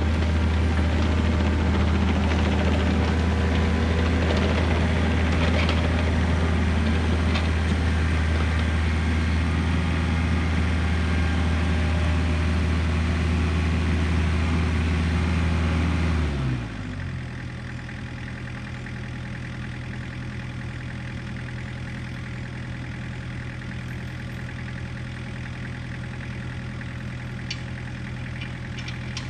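Kubota excavator's diesel engine running at working speed, then throttled down to idle about sixteen seconds in, its pitch and loudness dropping and then holding steady.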